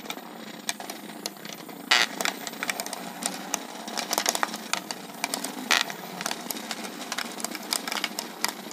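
Several Hexbug Nano vibrating micro-robots buzzing as they skitter around a clear plastic arena, with rapid irregular clicks and rattles as they knock against the plastic walls and each other. Sharper, louder clicks come about two seconds in and again near six seconds.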